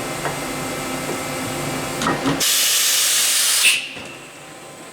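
Horizontal CNC machining center running with a steady hum, then a loud hiss of compressed air about two and a half seconds in, lasting over a second and cutting off sharply.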